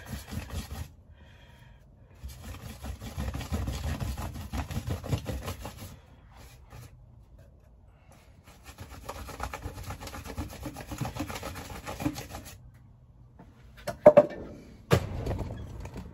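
Paintbrush scrubbing a wax and white-spirit mixture into a jacket's fabric in three spells of quick back-and-forth strokes, with short pauses between them. Two sharp knocks come near the end.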